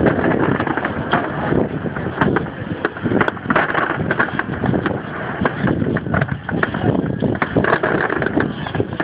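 Rough, continuous noise on a phone's microphone, broken by many irregular crackles and knocks: wind buffeting and handling on an open shore.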